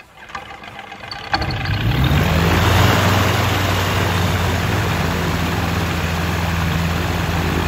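Cavalon gyroplane's engine being started: after a brief crank it catches about a second and a half in, picks up revs, and settles into a steady idle with the pusher propeller turning.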